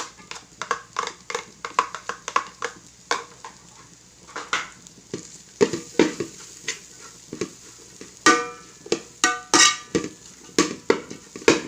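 Spatula knocking and scraping against a frying pan while shredded chicken is stir-fried into vegetables and egg: many irregular clanks, a few of them ringing, over a faint sizzle.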